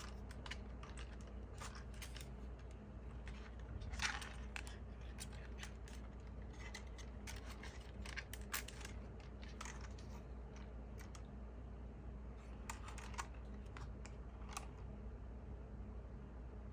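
Irregular small plastic clicks and taps as the folding arms and propeller blades of a DJI Mini 3 Pro drone are handled and swung out, with a few louder clicks among them, over a faint steady low hum.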